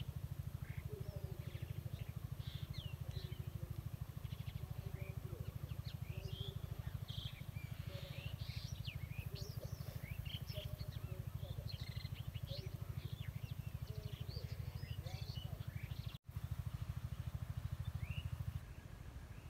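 Small birds chirping and twittering in quick, scattered calls over a steady low drone.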